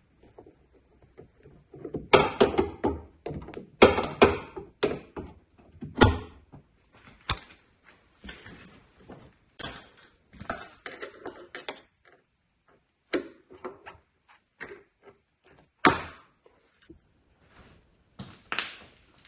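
Sharp clicks and knocks of a gas lift strut being handled and its end fitting pushed and snapped onto the ball stud of a Volkswagen Golf's rear hatch. A dense run of knocks comes a couple of seconds in, then scattered lighter clicks, and one more sharp knock late on.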